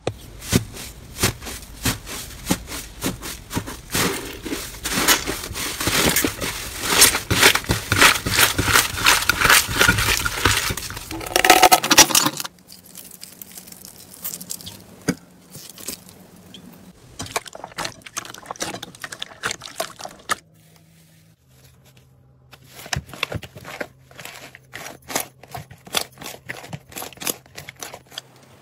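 Hands squeezing and kneading thick slime: a dense run of sticky clicks and pops that stops suddenly about twelve seconds in. Then quieter crackling from foam-bead slime (floam) being peeled and pressed, and after a short lull, more squishing clicks from another slime being kneaded.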